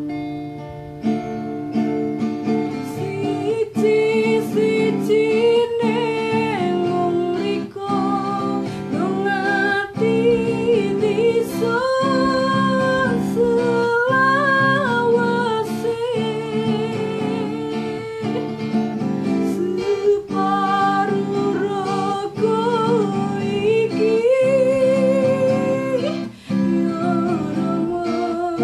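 A woman singing while accompanying herself on a strummed acoustic guitar, her voice carrying the melody with vibrato on held notes over the chords.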